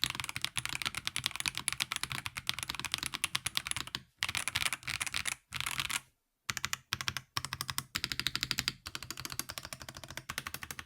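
Fast typing on a Fantech Maxfit70 mechanical keyboard: rapid runs of key clicks, with brief pauses between bursts and one short stop about six seconds in.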